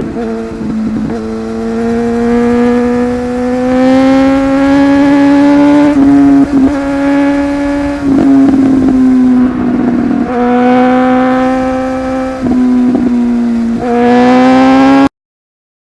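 Inline-four superbike engine revving high under hard acceleration, its pitch climbing through each gear with short breaks at the shifts. The sound cuts out suddenly about a second before the end.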